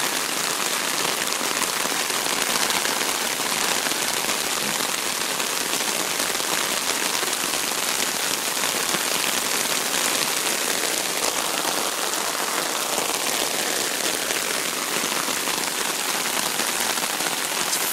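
Steady heavy rain falling, a constant even hiss of drops.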